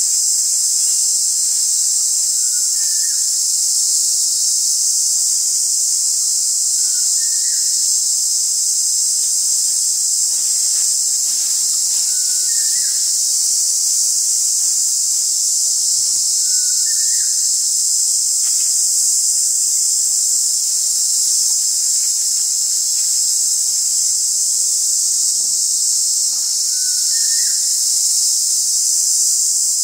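A steady, high-pitched insect drone. A short rising two-note call, most likely a bird, repeats about five times, roughly every four to five seconds.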